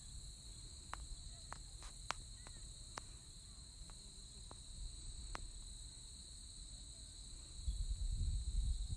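Insects trilling steadily at a high, even pitch over grassland, with low wind rumble on the microphone that swells near the end. A few sharp ticks come in the first half.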